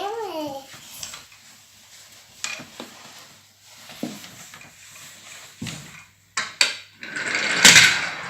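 Toy cars being handled and knocked together during play: scattered sharp clacks and knocks, with a child's short sung vocal sound at the start and a louder rustling scrape near the end.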